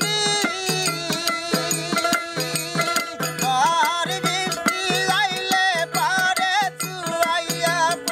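Bengali folk song: a man sings with wavering vibrato over a plucked dotara, a small hand drum keeping a steady beat, and the clicks of small hand cymbals.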